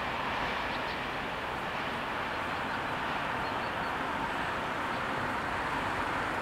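Steady, even rumble of a regional train moving away from the level crossing, easing off slightly at first and then holding level.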